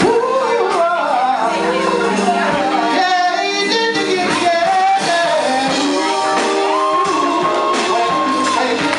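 Live gospel band with a voice singing melismatic runs, ending in a long held note about seven seconds in.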